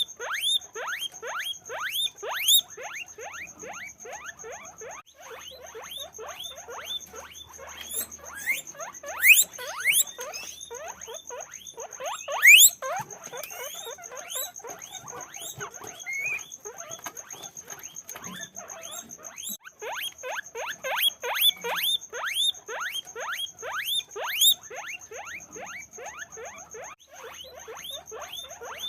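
Many guinea pigs wheeking: rapid, overlapping rising squeaks repeated several times a second, with a few louder squeals near the middle.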